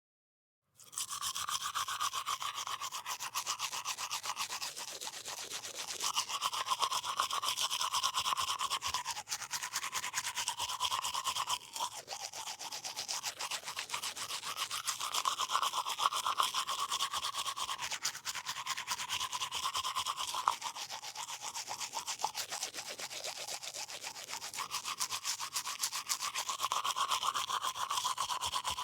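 Toothbrush scrubbing across teeth: continuous rapid back-and-forth brushing with a wet, foamy mouth resonance that shifts every few seconds as the brush moves around the mouth. It starts about a second in.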